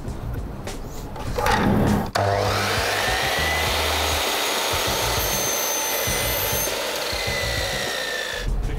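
Dnipro-M sliding mitre saw starting up about a second and a half in, then running and cutting through a wooden board, its steady high whine drifting slightly lower before it stops near the end.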